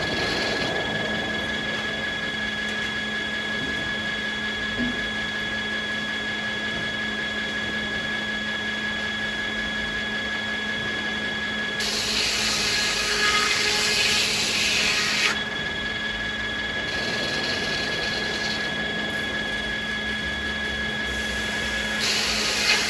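Sawmill saws running with a steady whine; about halfway through a blade cuts through beech for about three seconds, adding a loud hiss, and another cut starts near the end.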